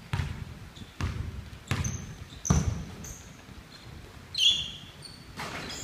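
Basketball bouncing on a hardwood gym floor, a handful of irregular thumps, with rubber-soled sneakers squeaking on the boards, loudest about four and a half seconds in.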